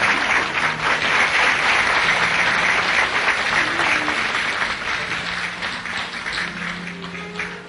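An audience applauding, thinning out toward the end, with soft music underneath.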